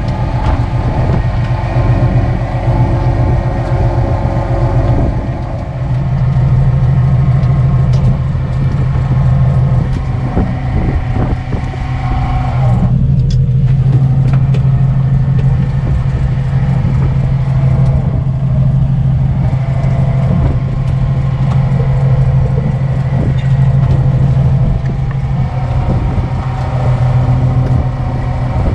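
Fishing boat's engine running steadily with a loud low hum, and scattered knocks and clatter from gear being handled on deck.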